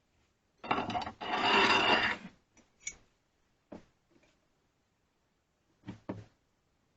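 Metal parts of a Record bar clamp being worked by hand: a rattling, ratchet-like mechanical run of about a second and a half, then a few separate clicks and knocks.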